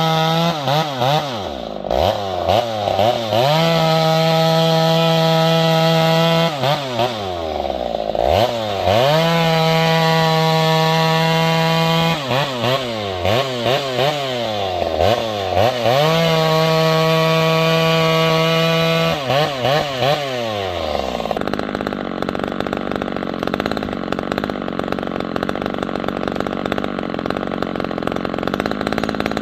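Two-stroke chainsaw held at full throttle, its engine note dropping and snapping back up as the throttle is blipped several times in quick runs. About 21 seconds in the engine note gives way abruptly to a steadier, rougher noise.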